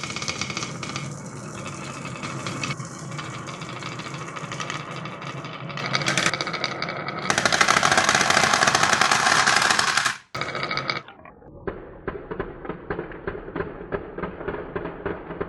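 Many marbles rolling and clattering down marble-run tracks in a dense, loud rattle, loudest a few seconds before it breaks off about ten seconds in. After the break comes a quieter, quick run of ticks and clicks.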